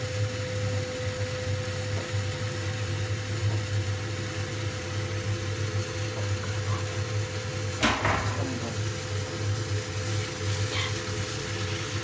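Baxi Combi 105 HE gas combi boiler running with its newly fitted pump, a steady low hum with a faint thin whine over it, and one sharp click about eight seconds in. The boiler is working normally, its pump-fault light gone.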